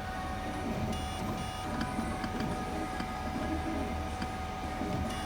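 3D printer running, its stepper motors holding a steady whine, with a few short higher-pitched whines about a second in as the print head makes quick moves.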